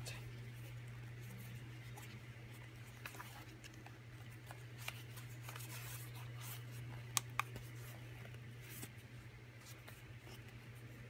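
Faint handling noise of Photive BTH3 over-ear headphones being turned over in the hands: light rubbing and a few small clicks, two of them close together about seven seconds in, over a steady low hum.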